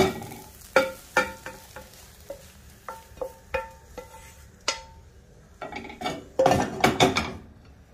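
A spatula knocking and scraping in a non-stick frying pan as a cooked flat omelette is lifted out onto a plate. There is a series of sharp clinks, several ringing briefly, then a longer stretch of scraping and knocking about six seconds in.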